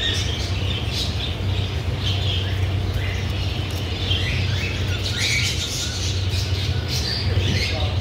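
A flock of caged cockatiels calling: many short, overlapping squawks and chirps, over a steady low hum.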